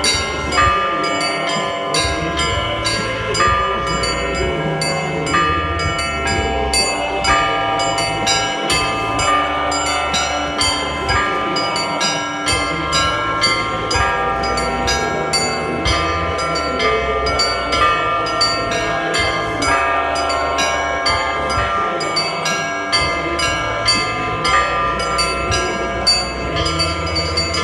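Russian-style church bell ringing (zvon) played by a bell ringer: quick, repeated strikes on the small bells over the ringing of larger bells, many tones sounding together, with a low hum underneath.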